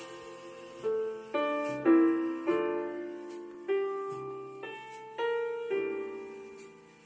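Background music: slow, gentle piano-like chords struck one after another, each left to ring and fade.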